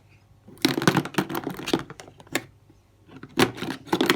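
A toolbox being forced open by hand: a quick run of clicks and rattles of its latch and lid, a single click, then another cluster of clicks as it gives way.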